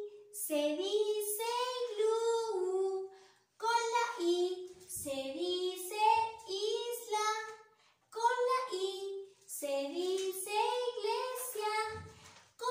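A woman singing a children's song alone, with no instruments, in three phrases with short breaks between them.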